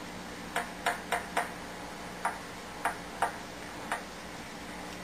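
Chalk tapping and scraping against a chalkboard with each stroke of handwriting: a string of sharp, irregular clicks, about eight in all, over a low steady hum.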